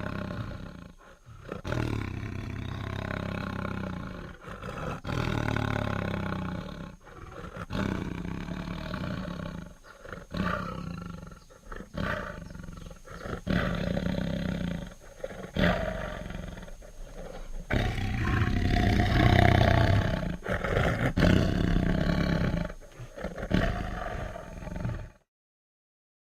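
Tiger roaring repeatedly: a long run of deep roars with short breaks between them, stopping shortly before the end.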